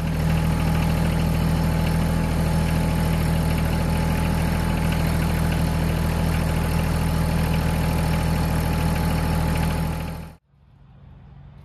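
Compact tractor's three-cylinder diesel engine running steadily and loud while the front loader lifts a pallet of about 950 pounds of concrete bags. The sound cuts off suddenly near the end.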